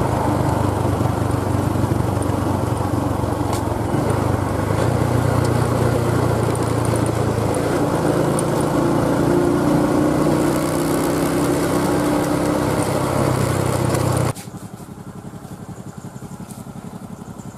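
Small motorcycle engine running at riding speed, its note stepping up and down a little with the throttle. About fourteen seconds in it cuts off abruptly to a much quieter motorcycle engine idling.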